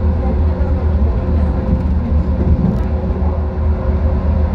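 Busan Metro Line 4 rubber-tyred light-rail train running at speed through a tunnel, heard from inside the front car: a steady low rumble with a faint steady hum over it.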